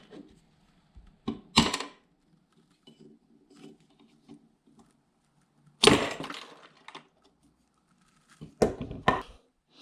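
Sharp clicks and knocks of small metal parts and a tool being handled at the AR-15 lower receiver while working the fire selector out. There is a light knock about a second and a half in, the loudest one about six seconds in, and another near the end.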